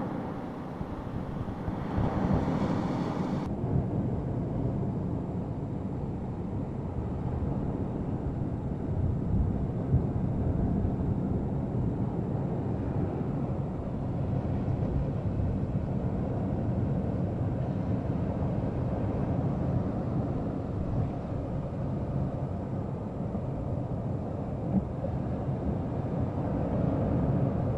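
Strong gusty squall wind buffeting the microphone: a deep, rumbling rush that swells and eases in gusts, with a brief brighter, hissier stretch a few seconds in.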